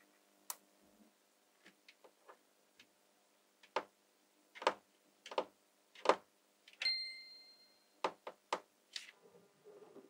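Magnetic balls clicking and tapping as they are handled: about fifteen sharp, irregularly spaced clicks, with one short ringing tone about seven seconds in.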